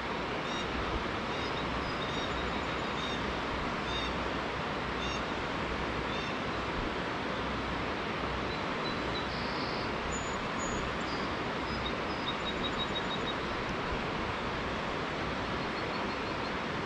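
A steady rushing noise, with faint bird chirps and short trills scattered over it.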